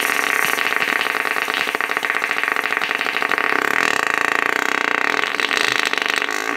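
A long, unbroken fart noise, a steady buzzing rasp that cuts off suddenly near the end.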